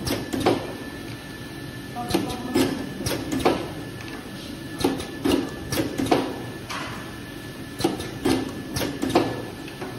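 Automatic bottle capping and conveyor line running: the pneumatic capping head and cylinders clack in short bursts about every second, over a steady faint whine from the machinery.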